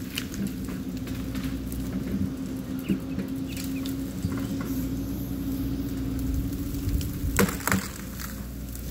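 Cat 314 excavator's diesel engine running with a steady hum while its bucket works into a brush pile; branches crackle and snap, with a louder burst of cracking about seven and a half seconds in.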